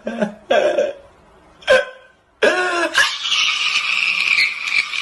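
A woman's voice making non-word sounds: a few short vocal bursts, then a long breathy hissing exhale lasting about two seconds.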